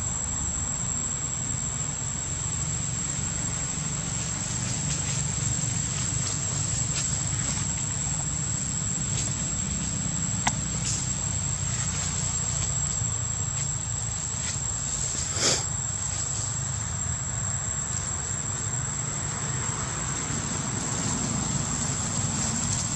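Steady insect drone in the forest, one thin high tone held without a break, over a low rumble. Two sharp clicks cut through it, the louder about fifteen seconds in.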